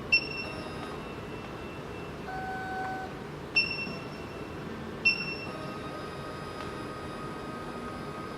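Three short electronic beeps from the SEC-E9 key cutting machine's touchscreen as menu buttons are pressed. The first comes right at the start, the second about three and a half seconds later and the third a second and a half after that, over a steady low hiss.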